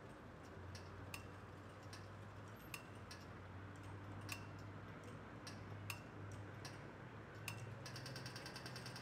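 Pedestrian crossing signal ticking slowly, about one tick every 0.8 s, as it does while the crossing is on red; near the end it switches to rapid ticking, the signal that it is now safe to walk. A faint low hum of traffic lies underneath.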